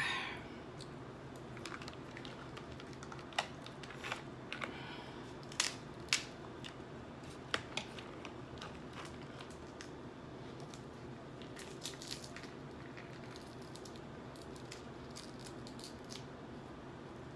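Snow crab legs being cracked and snapped apart by hand, the shells giving a scatter of sharp cracks and clicks, most of them in the first half, over a steady low room hum.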